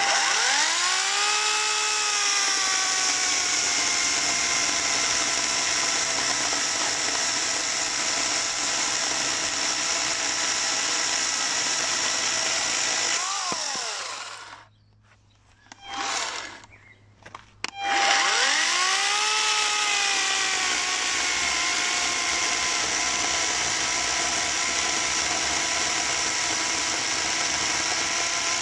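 Ferrex FN-AKS 4030 40 V cordless electric chainsaw sawing oak: the motor spins up with a rising whine, then runs steadily with its pitch sagging slightly under load. About halfway it stops with a falling whine, gives one brief burst, then spins up again and runs on.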